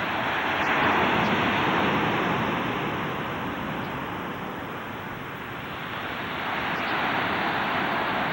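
Small waves breaking and washing up a sandy beach, a steady rush that swells about a second in, eases off through the middle, and builds again near the end.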